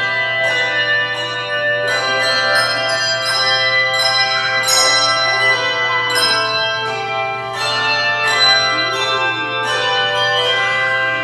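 Handbell choir playing a piece: chords of bells struck in a steady rhythm about once a second, each note ringing on and overlapping the next.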